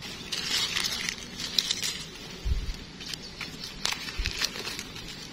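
Dry leaf litter crackling and rustling as gloved hands and a knife dig and cut a mushroom out of the ground. There are many small clicks and two low thumps in the second half.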